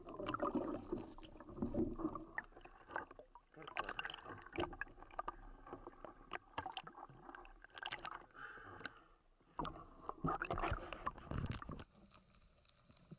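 Sea water sloshing, splashing and gurgling at the surface, heard through a waterproof camera housing that bobs in and out of the water, with irregular surges and sharp knocks. It drops to a faint, muffled sound near the end as the camera goes under.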